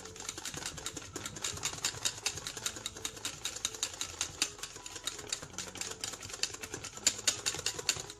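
Wire whisk beating whipping cream by hand in a stainless steel bowl: a fast, regular clatter of the wires clicking and scraping against the metal, several strokes a second, as the cream thickens. It stops suddenly near the end.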